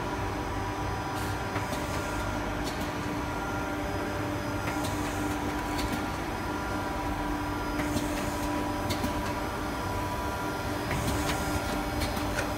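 Coffee capsule filling and sealing machine running: a steady mechanical hum with a held tone, and light, irregular clicks from its moving parts.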